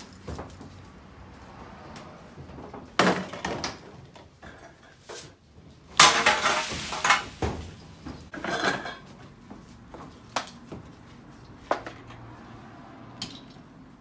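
Empty aluminium drink cans and plastic bottles clattering and clinking as they are dropped into recycling bins. There are a few rattling spills, the longest and loudest about six seconds in, then three single clinks near the end.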